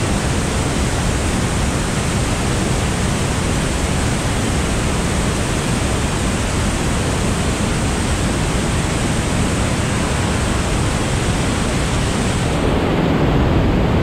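Niagara's Bridal Veil Falls and the rapids at its base: a steady, loud rush of plunging and churning water. About a second before the end it grows a little louder and deeper.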